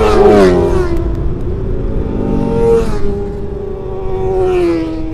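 Kawasaki Ninja ZX25R 250 cc inline-four engines with racing exhausts revving high as the bikes pass, the pitch dropping as each one goes by: once at the start, again about three seconds in and near the end. A steady low rumble runs underneath.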